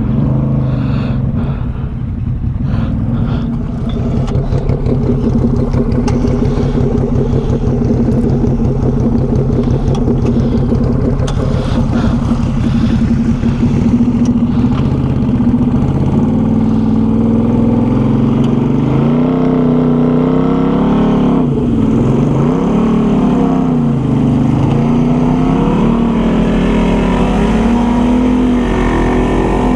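ATV engine running steadily, then from about halfway through revving up and down again and again.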